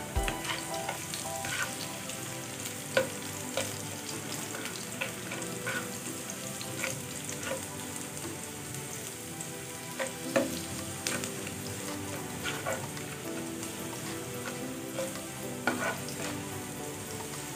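Minced garlic sizzling steadily in hot oil in a nonstick frying pan as it browns, stirred with a plastic spatula that scrapes and taps the pan now and then.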